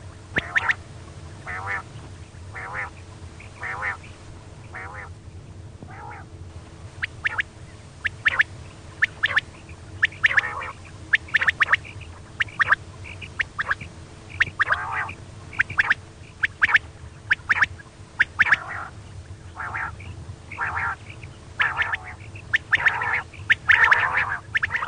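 Female common quail calling: short, rasping notes repeated one to two times a second, over a steady low hum. It is a lure call for hunting quail.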